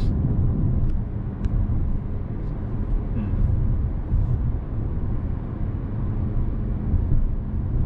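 Steady road and drivetrain rumble inside the cabin of a new Toyota Corolla Touring driving along at an even pace.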